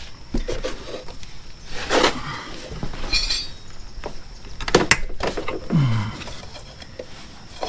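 Hand tools being handled, with a few separate metallic clinks and knocks as wrenches and sockets are picked up and set down. The sharpest knock comes about two-thirds of the way through.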